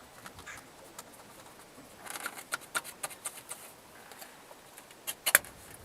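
Light metallic clicking and clinking of a wrench working the 10 mm nuts holding the clutch fan, with a run of quick clicks about two seconds in and two sharp knocks near the end.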